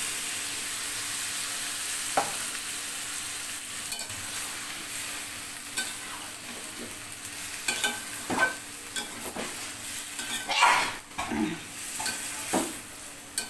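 Curry in a hot steel karahi sizzling and hissing as a little water is poured in, the hiss fading over the first seconds. From about two-thirds of the way through, a metal spatula scrapes and knocks against the pan as the curry is stirred, loudest a few seconds before the end.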